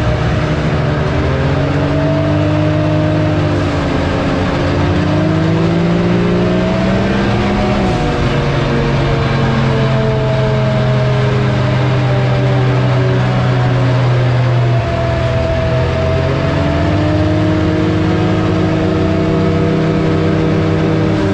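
Can-Am Maverick X3's three-cylinder engine running while the machine drives along a paved road, heard from the driver's seat. The engine pitch rises and falls with the throttle, dropping sharply about a third of the way in and again shifting suddenly about two-thirds through, with road and wind noise underneath.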